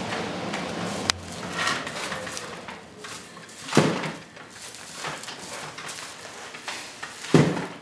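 Dry broomcorn straws rustling and twine being pulled as a broom head is tied and braided by hand, with a sharp click about a second in and two dull thumps, one midway and one near the end.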